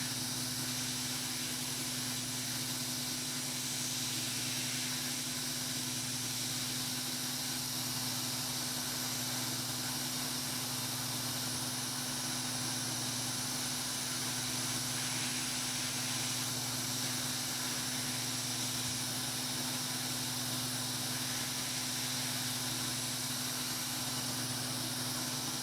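Steady hiss with a constant low hum, unchanging throughout.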